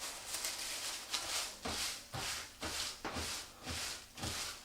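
Rustling of wrapping being handled and folded around a piece of marinated meat, in short swishes about twice a second.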